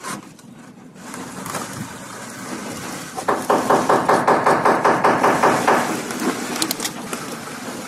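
Rapid, even knocking, about five knocks a second, for two or three seconds in the middle: wood being struck while wet cement render is worked by hand against a wooden edge board.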